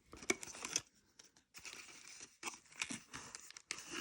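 Packaging being handled while parts are taken out of a box: rustling, crinkling and tearing in several short stretches.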